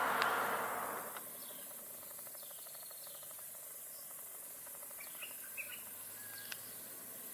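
Jungle ambience: a steady high insect hiss with scattered short bird chirps. A broad rushing noise fades out within the first second.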